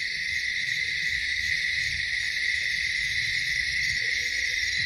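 Steady night chorus of insects: a constant high ringing in several pitch bands, unbroken throughout, over a faint low rumble.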